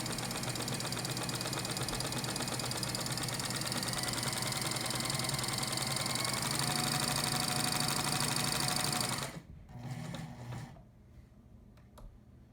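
Singer 24-55 industrial double-needle chainstitch sewing machine, driven by a belted electric motor, running steadily at speed as it sews a seam. It stops about nine seconds in, runs again briefly a moment later, then falls quiet apart from a small click.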